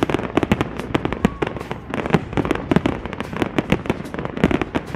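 Fireworks finale: a dense, irregular barrage of aerial shell bursts, several bangs a second without a break.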